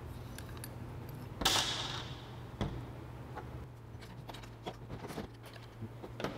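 Handling noise of scooter parts as a wheel is fitted into the fork: a short scraping rattle about a second and a half in, a sharp knock soon after, then small clicks. A steady low hum runs underneath.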